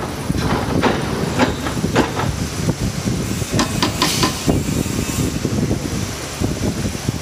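Sheet-metal bending machine running: a steady motor rumble with irregular metal knocks and clanks as the machine is worked by hand, and a brief burst of clatter about four seconds in.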